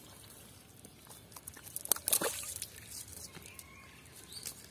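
Fish tangled in a nylon cast net being handled on wet mud: a short burst of rustling and wet slapping about two seconds in, with a few lighter ticks around it.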